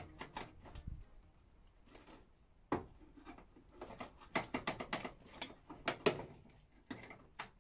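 Irregular light clicks and knocks of metal parts being handled by gloved hands at the front of a car's engine bay. The loudest knock comes about three seconds in, and a quick run of taps follows between about four and six seconds in.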